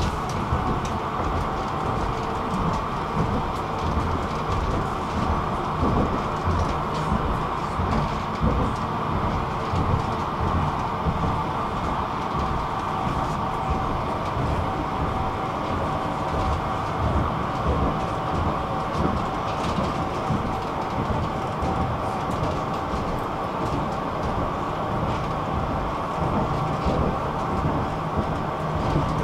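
Tram running at steady speed, heard from inside the passenger car: continuous rumble of the wheels on the rails with irregular clicks and knocks from the track, and a faint steady whine over it.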